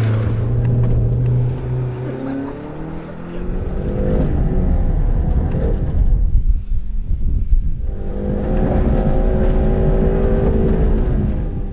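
Mini Cooper's engine revving up and accelerating hard, held at high revs, with a rough rumble of tyres on loose dirt in the middle. A steady engine note returns from about two-thirds of the way through.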